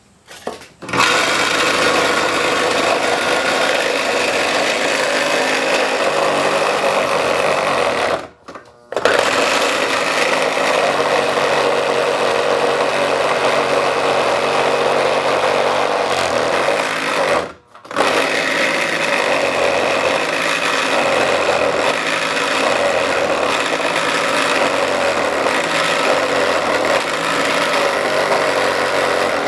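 Scroll saw running, its blade reciprocating up and down as it cuts grille openings in a wooden board, a loud steady buzz. It stops briefly twice, about eight seconds in and again near eighteen seconds, then starts up again.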